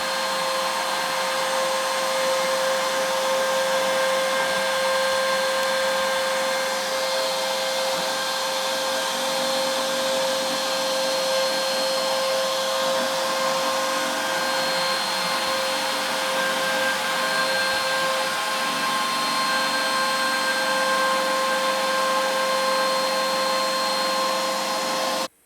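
CNC router spindle running steadily with a constant whine as a 1/16-inch ball-nose bit makes a finishing pass across a wood relief carving. It cuts off abruptly at the end.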